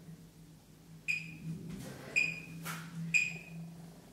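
Workout interval timer sounding three short beeps about a second apart, each ringing briefly and fading: a countdown to the start of the next timed hold.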